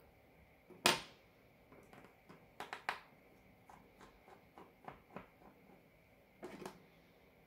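Small metal repair tools clicking and tapping against an opened smartwatch and the work table. There is one sharp click about a second in, a quick run of clicks near three seconds, and scattered lighter clicks after that.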